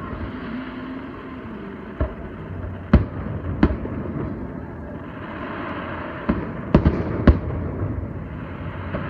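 Aerial fireworks going off: about six sharp bangs, three between two and four seconds in and a closer-spaced cluster of three around six to seven seconds in, over a steady background hiss.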